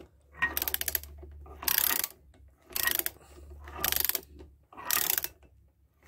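The gear train of a rebuilt, freshly oiled 1953 NSU Konsul 500 cc motorcycle engine being worked by hand, ratcheting and clicking in five short bursts about a second apart. The mechanism is turning freely and lightly.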